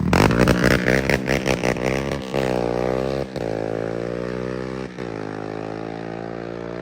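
Yamaha Raptor 700 ATV's single-cylinder four-stroke engine through a loud aftermarket exhaust: choppy and pulsing at first, then the revs fall away and settle into a steady idle by about halfway.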